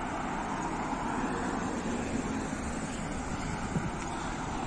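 Steady city street traffic noise from cars on the road alongside, with one brief knock a little before the end.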